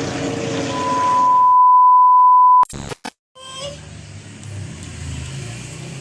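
A steady, high, pure electronic beep tone that swells in and holds for about two seconds. It breaks off abruptly with a short crackle and a moment of dead silence, as an inserted edit sound does.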